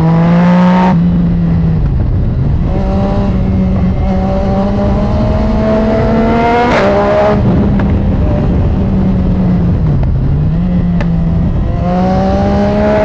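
Yamaha MT-09's three-cylinder engine, fitted with an aftermarket exhaust, pulling hard under way. The revs drop off early on, climb in a long rising pull that cuts off sharply at a gear change about seven seconds in, then climb again near the end.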